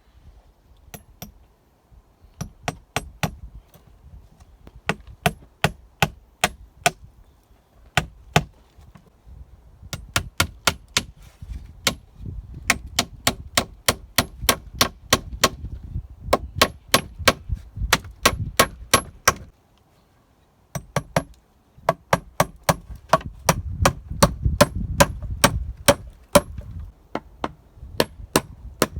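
Hammer driving nails into wood: runs of sharp, ringing strikes about three a second, with short pauses between runs and a brief break about two-thirds through.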